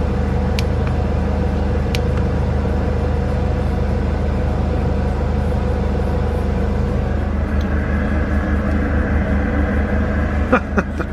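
Volkswagen Vanagon T3 engine idling steadily, heard through the van's open side door, with a few faint clicks.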